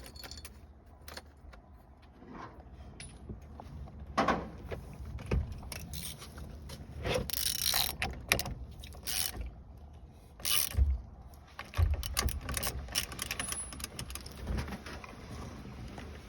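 Hand tools and metal steering-column parts clicking, rattling and clunking irregularly while being fitted back together, with a few louder knocks and scrapes.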